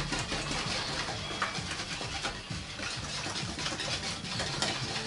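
A utensil stirring and scraping in a plastic mixing bowl, a quick, irregular run of small scrapes and taps, as flour is worked a little at a time into milk and eggs to make a lump-free pancake batter.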